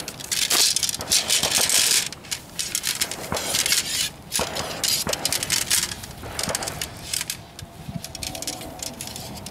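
Tent being pitched by hand: nylon tent fabric rustling in bursts, with scattered clicks and knocks of the tent pole sections being fitted together.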